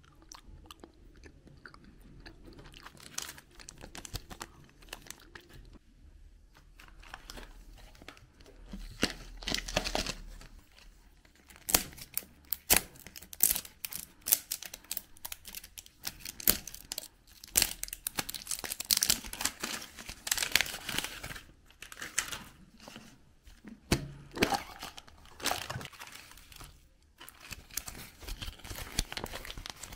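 Candy and surprise-egg packaging handled and opened by hand: plastic and paper wrappers crinkling and tearing, with many sharp clicks and crackles. Sparse at first, busier from about ten seconds in.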